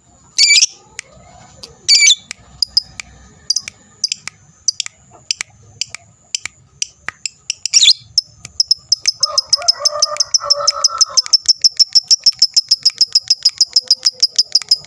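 Lovebird calling: a few loud, sharp squawks and scattered chirps, then from about halfway a long, rapid, evenly repeated high chatter (the lovebird's 'ngekek') that carries on without a break.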